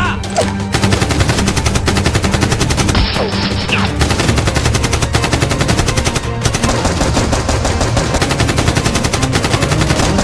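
Rapid, continuous machine-gun fire sound effects, many shots a second, over a steady music bed.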